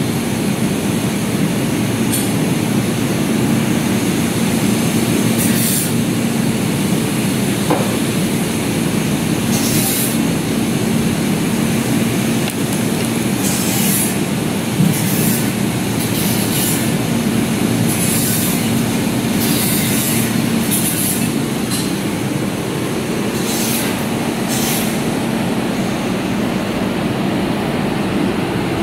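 Air-cooled chiller running: a loud, steady mechanical hum of its compressor and condenser fans with a steady low tone, and short high hisses every few seconds.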